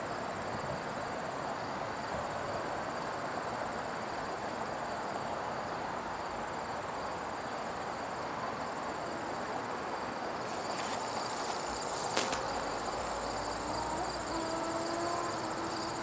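Insects trilling in a steady high-pitched chorus over an even wash of outdoor background noise. A faint steady hum comes in about three-quarters of the way through.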